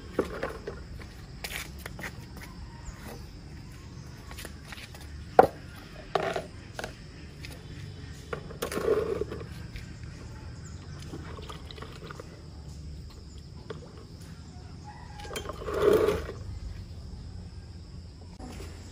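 Outdoor animal sounds: two loud calls of about a second each, one about nine seconds in and one near the end, over a steady high hum, with a few sharp clicks between them.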